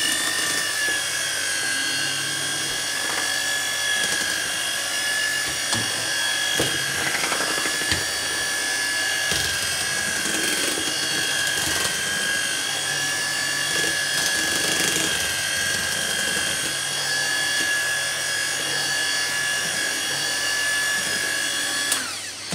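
Electric hand mixer running steadily with a high whine while beating icing, with a few knocks along the way. The motor is switched off near the end and its pitch falls away.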